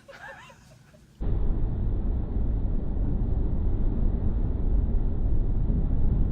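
A few faint chirps, then, about a second in, a sudden switch to a loud, steady low rumble with no distinct tones, such as wind buffeting a microphone or the drone of a moving vehicle.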